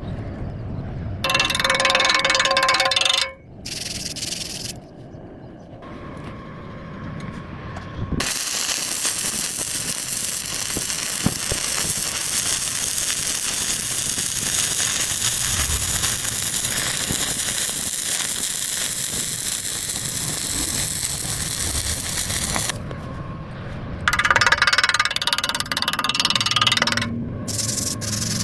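Arc welding, a steady crackling hiss lasting about fifteen seconds in the middle, with shorter, louder bursts of metalworking noise near the start and near the end.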